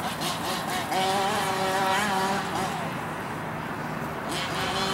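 Small two-stroke petrol engine of an FG radio-controlled monster truck running under throttle, its pitch rising to a peak about two seconds in, then dropping and easing off before picking up again near the end.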